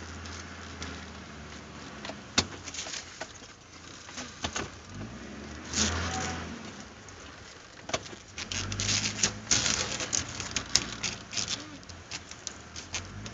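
Off-road vehicle heard from inside the cab, its engine running low and steady as it crawls over a rough forest track, with frequent knocks and rattles from the body jolting over bumps. The knocks get louder and busier about two thirds of the way through.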